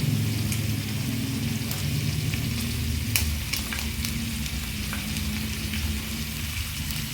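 Sausages frying in a pan: a steady sizzle with scattered pops and crackles over a low hum.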